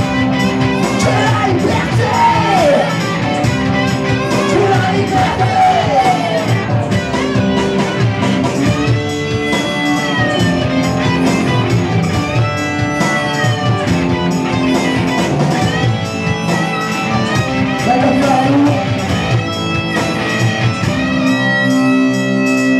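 Live rock band playing an instrumental passage: electric guitar over a steady bass-and-drums beat, with a lead line sliding and bending in pitch, loud and dense as heard through a phone's microphone.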